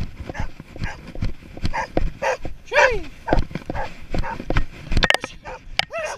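Search-and-rescue dog barking in short, repeated barks at a person lying in the grass, the bark alert a trained dog gives on a find. One bark, about three seconds in, is longer and falls in pitch. Underneath runs a steady series of low thuds, footfalls of the camera wearer moving through the grass.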